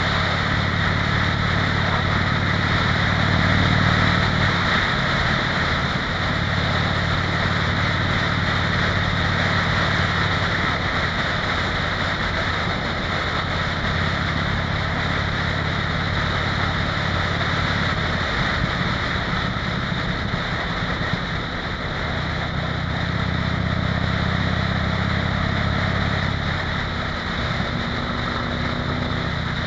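Harley-Davidson V-twin motorcycle engine running steadily at highway cruising speed, with its drone easing off and picking up a little now and then. Heavy wind rush over the microphone runs throughout.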